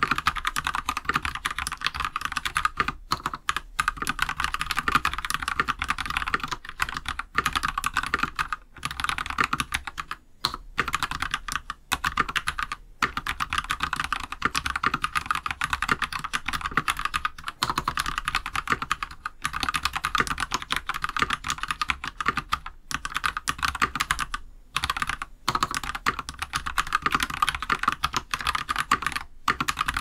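Fast typing on a MonstarGear NINJA87 mechanical keyboard with a steel plate and lubed Gateron Yellow (black top) linear switches. The keystroke clacks come in a dense stream, broken by a few short pauses.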